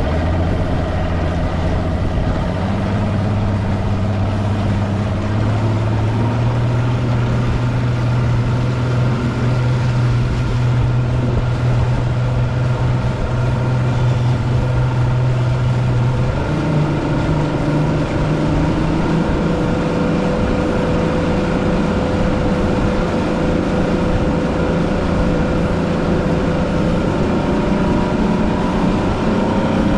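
Bass boat's motor running while the boat moves through the water. Its pitch climbs slightly in the first few seconds, steps up about sixteen seconds in, and rises again near the end.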